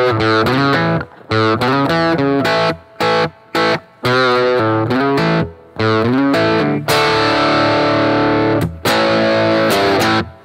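Rickenbacker 330 electric guitar with toaster pickups, in the middle pickup position with the neck pickup rolled back on the blend knob, played through overdrive: riffing on distorted chords in short chopped stabs, then two longer held chords near the end. The tone is tight, with the mids pushed forward.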